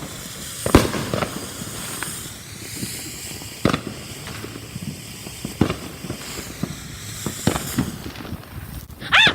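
Consumer fireworks going off: scattered sharp bangs and pops a second or two apart over a steady crackling hiss.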